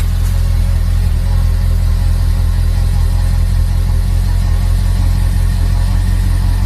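BMW E34 540i's 4.0-litre V8 running at a steady, even note with no revving, heard through an exhaust whose catalytic converters have been replaced by welded-in straight-through pipes, with a reworked stock rear muffler. The sound is deep and loud.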